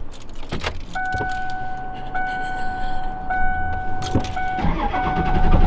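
Vehicle warning chime in the van's cab, a steady tone that repeats about once a second, with keys jangling and clicking before it starts.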